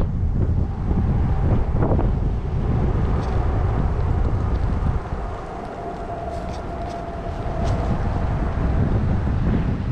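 Wind buffeting the microphone, a heavy low rumble that eases somewhat about halfway through, with a faint steady whine in the middle.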